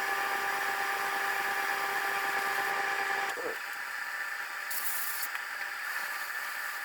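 Spray-finishing equipment spraying sanding sealer: a steady hiss of air with a steady hum that cuts off about halfway through, and a short, sharper hiss about five seconds in.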